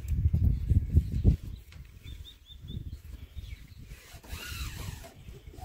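Hands rubbing a vinyl decal stripe down onto a tractor's painted metal hood and pulling its backing paper, heard as rubbing and low rumbling handling noise, loudest in the first second and a half. A few short high chirps come about two seconds in.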